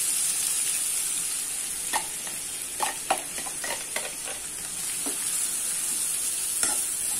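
Chopped onions frying in hot groundnut oil in a non-stick kadai, a steady sizzle, with scattered taps and scrapes against the pan from about two seconds in as the bowl is emptied and the onions are stirred with a spatula.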